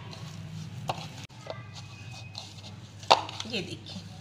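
Hand kneading crumbly Oreo-and-milk dough in a ceramic bowl, with a few sharp knocks of hand against the bowl; the loudest knock comes about three seconds in.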